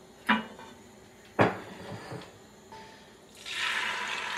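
Two sharp knocks of kitchenware, then a steady sizzle starting about three seconds in as whisked egg goes into a hot oiled frying pan.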